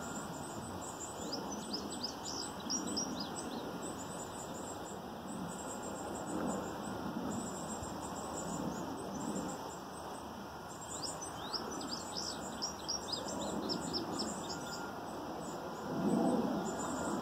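A songbird singing in two bursts of quick, high, down-slurred notes, with faint high trills, over a steady low rushing background.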